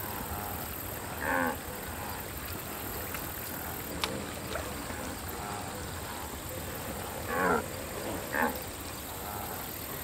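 Cartoon wildebeest making short grunting, moo-like calls that bend in pitch: one about a second in and two more near the end, over a steady background hiss. A single sharp click sounds about four seconds in.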